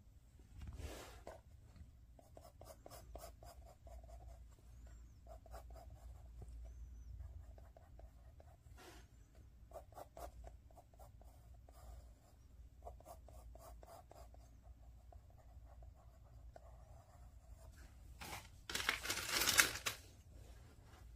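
Coloured pencil scratching on drawing paper in runs of short shading strokes, with a louder, longer scrape near the end.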